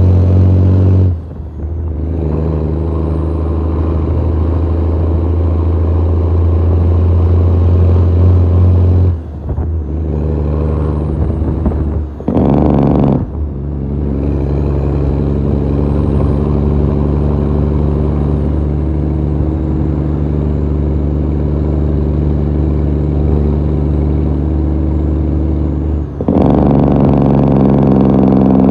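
Loud diesel engine of a Western Star truck heard through its vertical exhaust stack, running steadily. It dips briefly four times, about 1, 9, 12 and 26 seconds in, as gears are shifted, and a high whistle climbs again after each dip.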